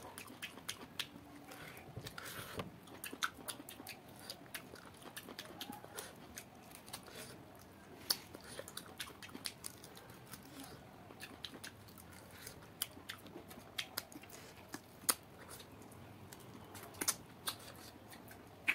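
Close-up chewing and biting on cooked duck pieces: irregular wet mouth clicks and smacks as meat is gnawed off the bone, with a few louder clicks.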